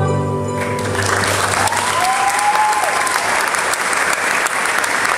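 The final sung note and its backing music end just under a second in. An audience then claps steadily, with a short rising-and-falling whoop from the crowd about two seconds in.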